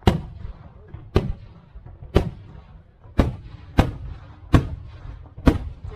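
Fireworks bursting overhead: about seven sharp bangs, roughly one a second, each trailing off in a rumbling echo, with faint crackling between.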